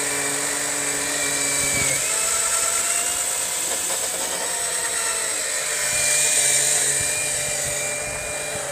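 Small 12 V electric oil extraction pump running steadily, a motor whine with a bright hiss, as it draws engine oil up through the dipstick tube. Its pitch shifts slightly about two seconds in.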